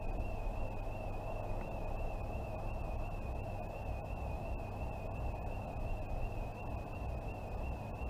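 Electronic intruder alarm sounding continuously in the distance: a single high warbling tone that wobbles quickly and evenly in pitch, over a low rumble.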